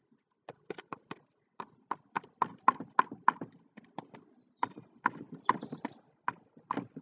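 The edge of a folded piece of cardboard chopped repeatedly against a stretched painting canvas on an easel: quick sharp knocks at about three a second, with brief pauses near the start and around the middle.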